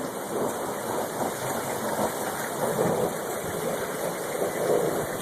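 Sleet and rain falling steadily in a storm, a continuous hiss with slow swells.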